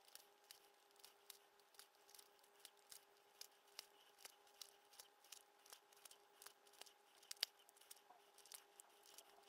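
Faint, irregular small clicks and ticks from hand-stitching a leather pouch: needle and thread drawn through the stitching holes and the leather handled, a few clicks a second, with one sharper click about seven seconds in. A faint steady hum runs underneath.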